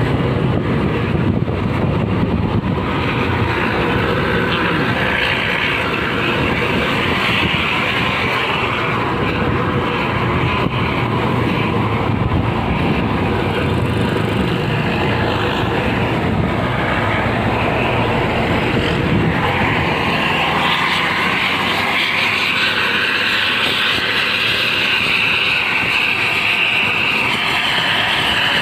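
Buses running on the road at speed: a continuous mix of engine and road noise, with the hiss getting stronger over the last third.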